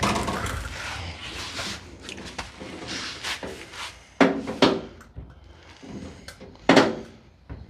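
Steel car door on a 1953 Ford being worked on its freshly re-pinned hinges: some scraping and rattling, then sharp clunks of the door closing and latching, a pair about four seconds in and another pair near seven seconds.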